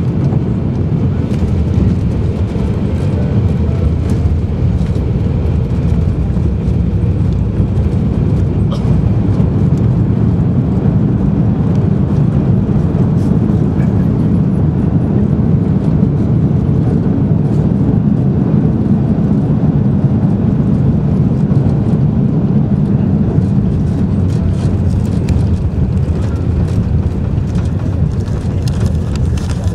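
Steady low cabin rumble of a jet airliner rolling on the ground after landing, engine noise and runway rumble heard from inside the cabin, with a few faint rattles.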